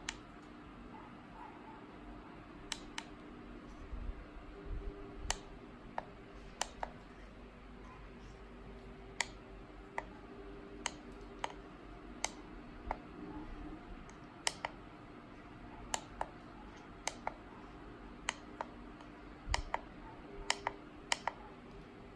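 Push buttons on a handheld Mach3 CNC pendant (MPG control box) clicking as a thumb presses them: short, sharp clicks at irregular intervals, some in quick pairs, over a steady low hum.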